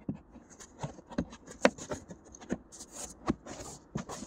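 Hands working the carpeted trunk trim panel: scattered light taps and clicks with brief rubbing and brushing sounds.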